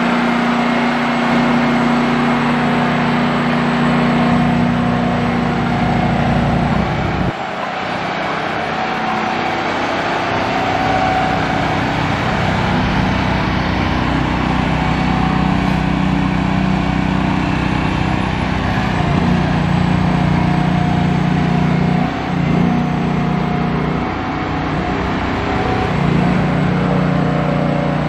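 Semi-truck's 600-horsepower diesel engine running loud while it pulls the shed-hauler trailer. The engine note drops sharply about seven seconds in, then rises and falls several times as the throttle changes.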